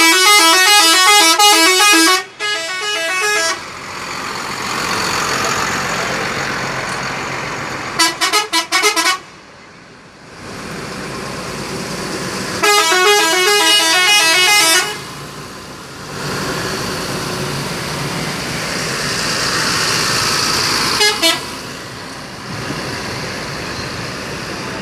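Indonesian tour-bus 'telolet' multi-tone musical horn playing its stepped tune in loud blasts. A long melody opens, with a second phrase just after; a quick stutter of toots comes about 8 seconds in, another melody around 13 seconds and a short toot near 21 seconds. Between the blasts there is a steady vehicle noise.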